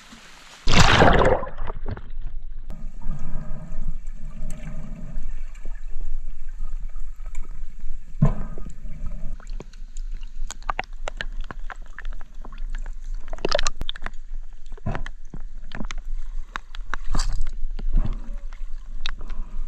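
Water sloshing and gurgling around a camera held at and under the lake surface, with scattered clicks and short bursts of water noise. A loud rush of water comes about a second in.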